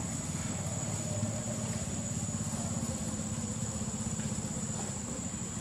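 Steady low rumble of an idling engine, such as a motorbike, running without change, with a constant high-pitched insect drone over it.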